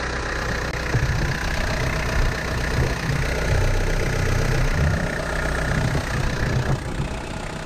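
Off-road 4x4's engine idling, heard close up in the engine bay, while it drives an onboard air compressor converted from an AC compressor. A steady whine runs with it and stops about a second before the end.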